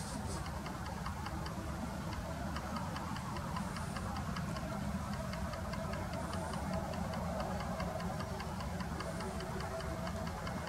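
Faint low rumble of a distant jet airliner on final approach, with a steady, rapid high-pitched ticking of about five a second running over it.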